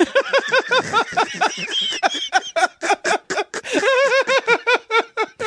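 People laughing hard: a long run of quick, rhythmic 'ha-ha' laughs.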